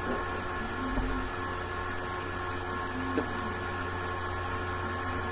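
Steady electrical hum and hiss, with a soft low thump about a second in and a single sharp click a little after three seconds.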